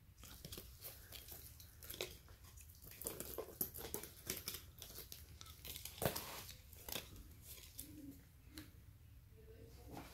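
Gloved hands handling a canvas carry bag and pulling a cardboard hang tag and its string off the bag's handle: soft rustling and crinkling with scattered clicks and snaps, the sharpest about six seconds in.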